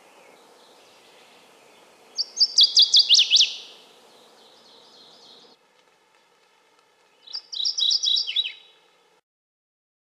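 Northern waterthrush singing: two loud songs of rapid, repeated sharp notes that end in quick down-slurred notes, about two seconds in and again about seven seconds in.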